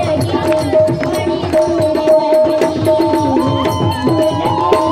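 Music: a steady drum beat under a melody that glides up and down over a long held note.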